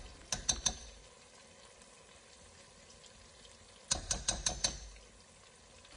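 A metal spoon tapped against the edge of a cooking pot to shake off black pepper powder: a few quick clicks at the start and a second run of about six about four seconds in. A faint simmer of sauce sounds between the taps.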